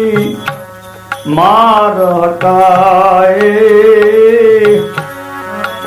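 Devotional bhajan music: a singer glides up into a long, wavering held note about a second in and lets it go near the end, over tabla strokes and a steady drone.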